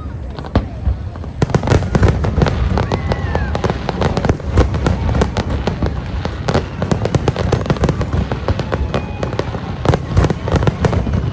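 Fireworks going off in a dense barrage: rapid, overlapping cracks and pops with deeper bangs, without a break.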